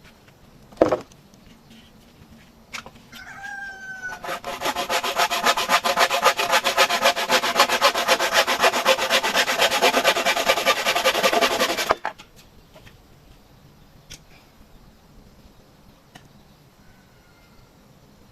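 Handsaw cutting through bamboo in quick, even back-and-forth strokes that build up over a few seconds, run steadily, then stop abruptly. A short chicken-like call is heard just before the sawing starts.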